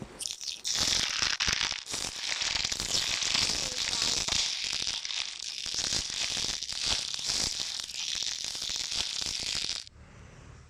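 Dense crackling and crinkling, a rapid run of many small clicks, that cuts off suddenly near the end.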